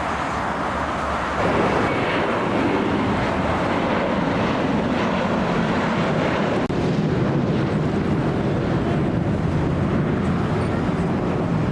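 Jet airliner passing close by, its noise rising sharply about a second and a half in and then holding loud, with a slowly falling pitch.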